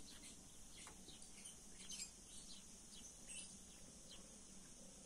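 Faint, scattered chirps of small birds, short high calls at irregular intervals over an otherwise near-silent background.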